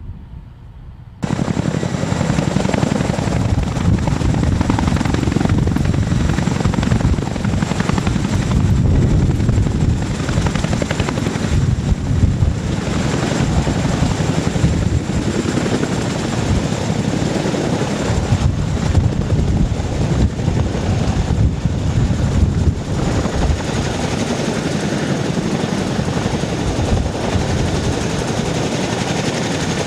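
CH-47 Chinook tandem-rotor helicopter hovering low, settling onto the pad and running on the ground with its rotors turning: a heavy, rapid rotor beat over a steady thin high turbine whine. It starts abruptly about a second in.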